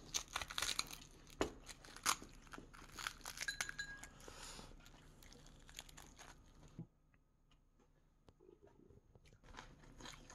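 Crispy baked salmon head crackling and crunching as chopsticks tear the skin and pull meat from it: a busy run of sharp crackles and clicks that stops about seven seconds in, with a few more crackles near the end.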